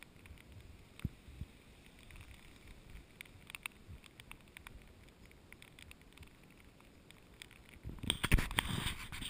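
Scattered light taps of rain hitting the camera, with a few low thumps, then about eight seconds in loud rubbing and knocking as a hand grabs and handles the camera.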